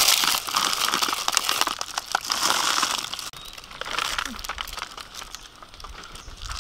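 A thin plastic glove crinkling as a gloved hand works chicken pieces through batter. It is loud for about the first three seconds, then quieter.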